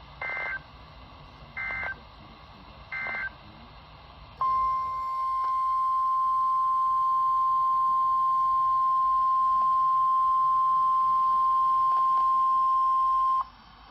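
NOAA Weather Radio alert sequence: three short, buzzy bursts of SAME data header about a second and a half apart, then a loud, steady single-pitch alarm tone held for about nine seconds that cuts off suddenly. The tone is the alert that marks a warning message about to follow.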